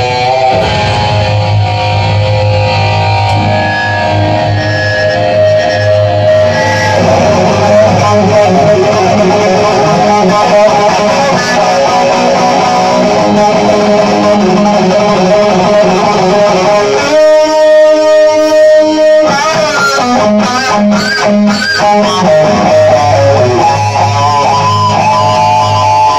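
Live heavy metal band playing: electric guitars over bass guitar and drums. About 17 seconds in, the bass and drums drop out for about two seconds, leaving one held guitar note ringing. The full band then comes back in with bent lead-guitar notes.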